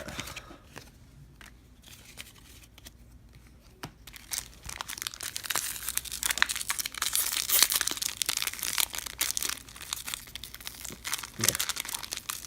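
A trading-card pack wrapper being torn open and crinkled. A few faint clicks come first, then dense crinkling and tearing from about four seconds in.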